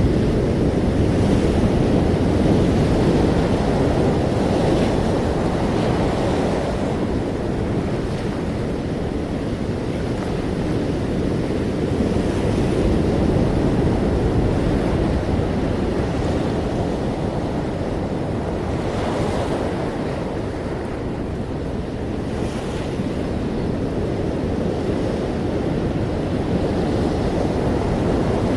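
Ocean waves breaking and washing in continuously, a deep steady rush that swells and eases every few seconds.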